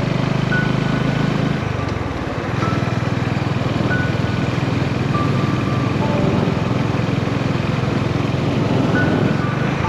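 Honda GB350's air-cooled single-cylinder engine running steadily under way, its exhaust note dipping briefly about two seconds in, as at a gear change or throttle lift, then picking up again.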